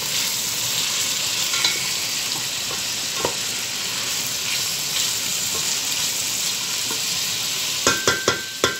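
Diced onion, peppers and carrot sizzling as they fry in a stainless steel pot while a wooden spoon stirs them, with small scraping clicks. Near the end, four quick sharp knocks that set the steel pot ringing.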